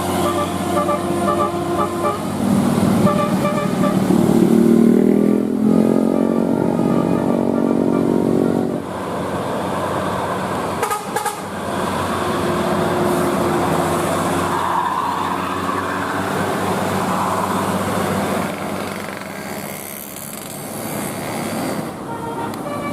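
Tour bus telolet horn playing a run of short melodic notes, then a rising glide into a long multi-tone chord that cuts off about nine seconds in. After that comes a noisier stretch of vehicle sound with fainter horn tones.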